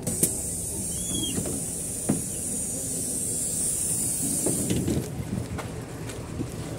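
PAZ 32053 bus's pneumatic doors opening: a sharp click, then a steady hiss of air for about four and a half seconds that cuts off suddenly, over the low rumble of the idling engine. A thump or two sounds as someone steps down from the doorway.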